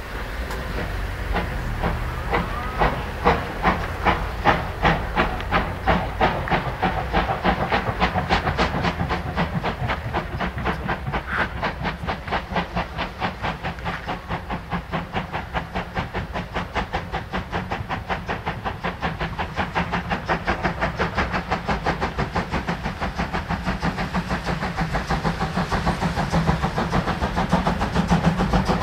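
Class 52.80 steam locomotive hauling a freight train, its exhaust chuffing in a steady rhythm over steam hiss and a low rumble. The beats run about two a second at first and come closer together later, as the engine picks up speed.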